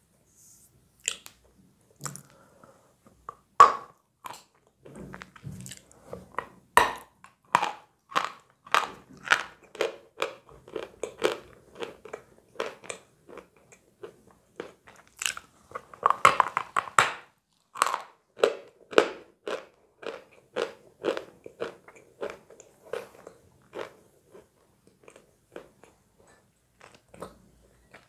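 A person biting into a lump of edible chalk and chewing it close to the microphone, with crisp crunches about one or two a second. There is a loud bite a few seconds in and a thicker run of crunches about halfway through.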